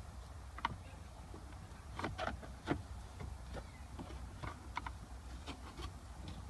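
Plastic centre-console trim around the shifter being pried loose: scattered small clicks and snaps as its clips pop, a small cluster of them about two seconds in.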